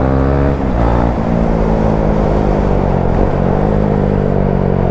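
Motorcycle engine running while riding, with the rush of air and road under it. The engine pitch falls a little under a second in, then settles and changes again about three and a half seconds in.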